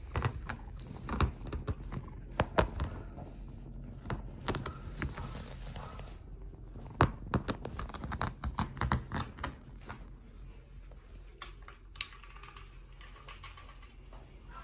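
Irregular clicks, taps and scuffs from an Abyssinian kitten's paws and claws on carpet, close to the microphone, thinning out after about ten seconds as it moves away.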